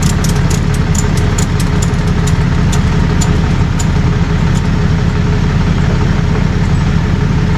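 Vehicle engine idling steadily with a deep, even rumble. A run of light clicks sounds over the first few seconds, then fades out.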